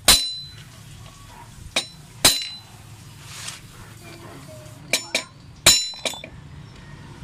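Hammer striking a steel punch set against a motorcycle brake-disc bolt head, knocking the bolt round to loosen it: about seven sharp metallic strikes at uneven intervals, each ringing briefly.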